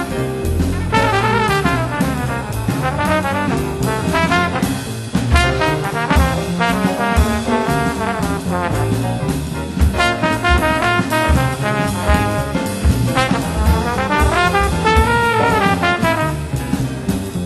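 Valve trombone playing a jazz solo line, backed by a rhythm section with walking bass notes and drums.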